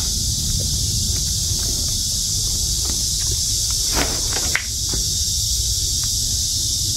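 A steady, high-pitched insect chorus, with a low rumble and a few faint clicks underneath.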